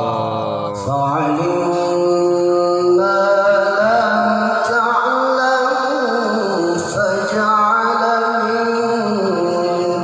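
A man reciting the Quran in the melodic tilawah style. He holds long notes with ornamented turns, steps up in pitch over the first few seconds, and slides back down midway.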